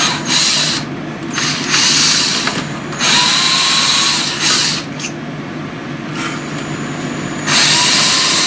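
Ryobi 18 V cordless drill boring holes through a metal plate, in about five short bursts of bit cutting against metal with quieter stretches of the motor between them. The longest quiet stretch comes in the second half, and a final burst follows near the end.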